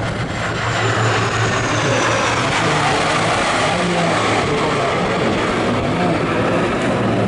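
High-speed special operations boats running at full speed, a steady low engine drone under the rush of water and spray from their hulls and wakes.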